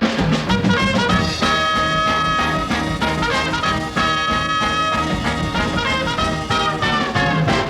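Upbeat swing big-band music led by brass, with a steady beat and held horn notes.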